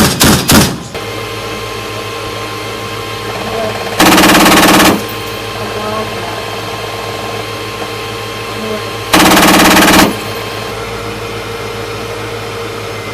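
M242 Bushmaster 25 mm chain gun firing: a few shots right at the start, then two bursts of about a second each, around four and nine seconds in. Between bursts there is a steady vehicle hum.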